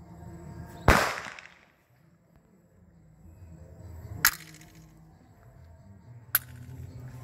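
A pistol shot about a second in, the loudest sound, with a short decaying tail. Two shorter, quieter sharp cracks follow about three and five seconds later.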